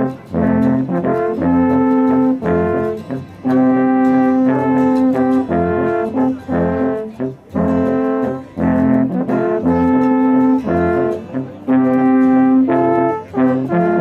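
Three alphorns playing together: a slow melody of held notes, each broken off by a short pause for breath before the next.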